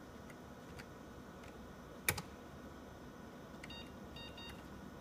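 Computer keyboard keys being pressed to change the BIOS clock: a few light keypresses and one sharp, louder key strike about two seconds in. Near the end come three short, faint high beeps, over the steady faint hum of the running computer.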